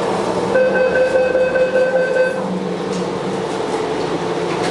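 Bombardier rubber-tyred Wenhu line metro train running, with a steady high tone sounding for about two seconds near the start over the running noise; the uploader says this train makes an abnormal noise while running.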